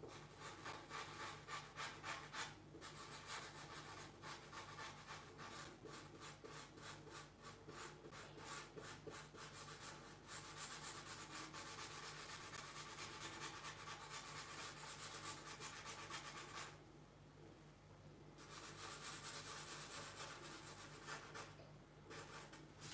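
Black marker nib scratching on paper in quick, repeated strokes, filling in solid black areas of an ink drawing. Faint, with a pause of about a second and a half some three-quarters of the way through.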